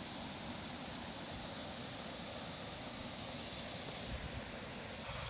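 Steady rushing roar of a waterfall, an even noise with no pitch, with a few brief low bumps about four seconds in.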